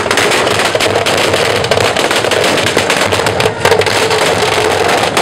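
Fireworks set off on a cart with a flaming torch, crackling in a dense, continuous rattle of small sharp bangs.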